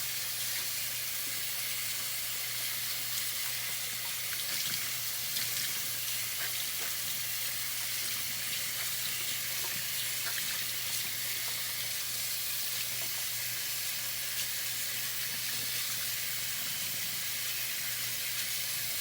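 Tap water running steadily while shampoo is rinsed out of a lace wig held under the stream.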